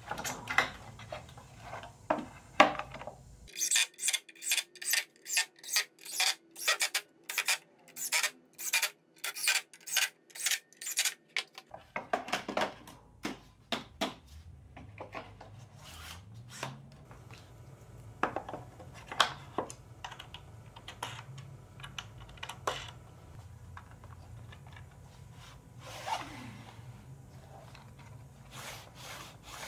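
Bench work on wooden and metal parts: scattered knocks and clicks, and about three seconds in a run of sharp, evenly repeated strokes, about two to three a second, that stops after some eight seconds.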